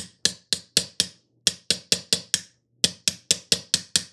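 Claw hammer striking a metal die to drive a KAM rivet press part back into place, the part wedged tight by fresh paint. Quick sharp strikes in three runs of about five, roughly four a second, with short pauses between the runs.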